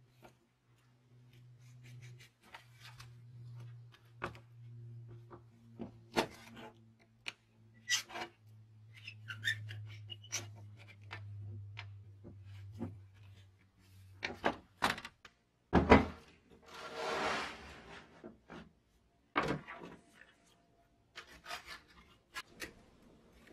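Workshop handling sounds: a screwdriver working the brass screws out of an old hand saw's wooden handle, with small clicks and creaks of metal on wood, and tools and the saw being knocked against a wooden workbench. A low steady hum runs under the first half, and later comes one loud knock followed by a short rubbing scrape.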